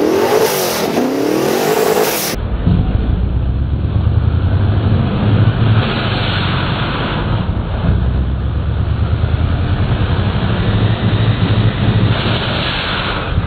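Twin-turbo sand rail engine revving, its pitch climbing and falling. About two seconds in the sound cuts to the engine running under load with a deep rumble that swells and eases.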